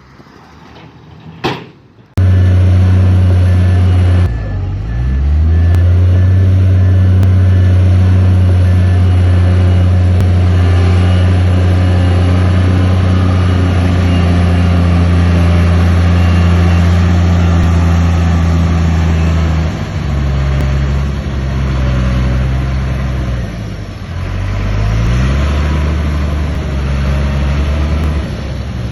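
Heavy diesel engine of earthmoving machinery running hard. It cuts in abruptly about two seconds in, and its engine speed dips and climbs back a few times, as when the machine is working a load.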